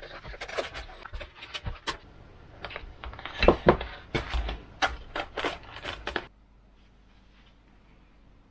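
Hands handling EPP foam model aircraft parts: a quick run of rustles, squeaks and taps as the taped foam fuselage pod is worked loose, stopping abruptly about six seconds in.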